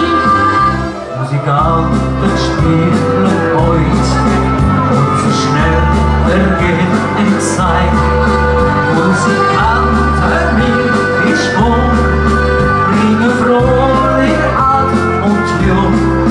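Live dance music: accordion played over an arranger keyboard's backing of bass and drums, with a steady beat.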